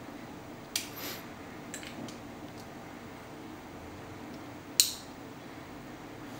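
Small hard clicks from a black part of a G&G Kar 98 CO2 airsoft rifle being handled and fitted: a light click about a second in, a fainter one about two seconds in, and a sharp, louder click a little before five seconds, over a steady low hum.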